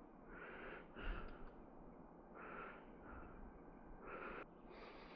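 Faint breathing: several soft breaths out through the nose at uneven intervals.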